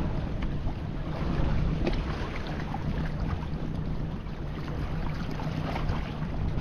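Wind buffeting the microphone with a steady low rumble, over small waves lapping and splashing among shoreline rocks.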